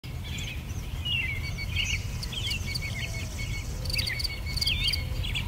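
Outdoor nature ambience: birds chirping with short rising and falling calls, and insects trilling in quick ticking runs, over a steady low rumble.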